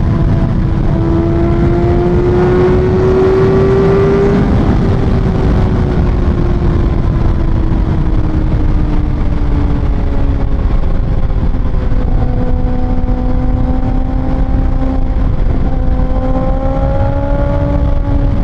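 Kawasaki ZX-6R's 636cc inline-four with an aftermarket Austin Racing exhaust, heard from the rider's seat: revs climb over the first few seconds, then ease off slowly into a steady cruise and rise a little again near the end, over a steady rush of wind.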